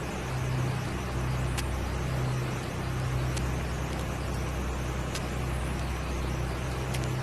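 Steady low drone of a vehicle running at a constant speed, with no siren or horn. A sharp click repeats about every 1.8 seconds, once per turn of a 33⅓ rpm vinyl record: a scratch on the disc.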